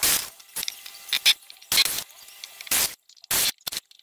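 Short, irregular bursts from a cordless drill-driver backing screws out of old timber boards, with sharp clinks between them, several each second.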